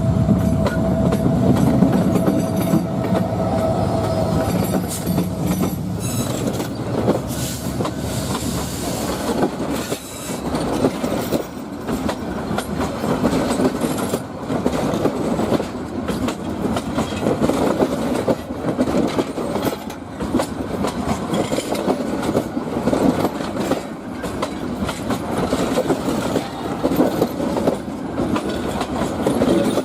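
Train running past, its wheels clattering rhythmically over the rail joints. A steady engine hum in the first few seconds fades away, leaving the wagons' clatter.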